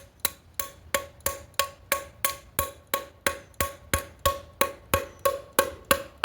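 Hammer tapping steadily on a Whirlpool/Kenmore direct-drive washer transmission case to break it open after its bolts are out, about three even taps a second, each with a short metallic ring.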